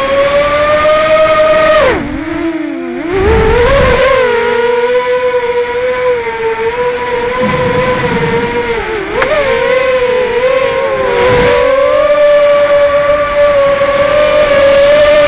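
Emax 250 Pro racing quad's four Sunnysky 2204 2300kv brushless motors on 5040 props, a loud steady whine heard from the onboard camera. The pitch falls sharply about two seconds in as the throttle is chopped and climbs back a second or so later. It dips briefly twice more later on, with each throttle change.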